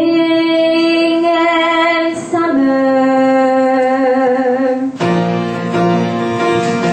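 A girl singing long held notes over musical accompaniment. About five seconds in, her held notes give way to lower sustained notes.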